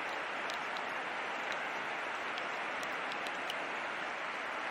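Floodwater rushing in a steady, unbroken wash of noise, with a few faint scattered ticks over it.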